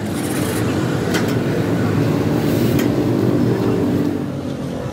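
Steady low rumble of a running engine, with two sharp clicks about a second and nearly three seconds in.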